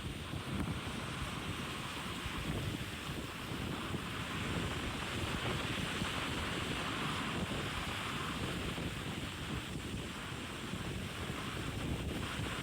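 Steady wind buffeting the microphone over the rush of sea water from a yacht under way on the open ocean.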